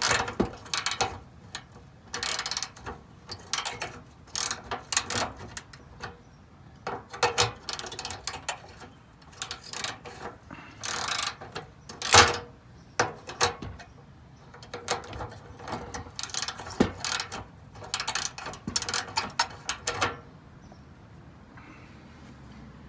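Hand ratchet clicking in bursts of quick strokes as it tightens a fender bolt, with short pauses between bursts; it stops about twenty seconds in.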